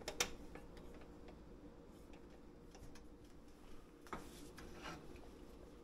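A sharp click as an electric range's control knob is turned, then faint scattered ticks and two light knocks about four and five seconds in as a stainless steel oil bottle is picked up.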